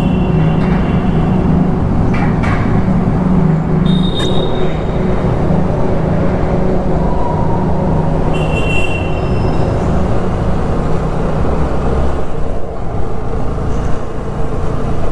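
Single-cylinder engine of a TVS Apache 160 motorcycle running steadily, with traffic noise from a jam of vehicles around it. Short high-pitched tones sound briefly about four and eight and a half seconds in.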